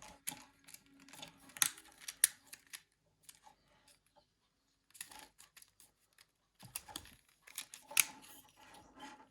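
Small plastic parts of a Nokia 9300i being handled and pressed together by hand as the new frame goes on. The sounds are light rustles and sharp clicks, coming in three bursts, with the sharpest clicks about one and a half seconds, two seconds and eight seconds in.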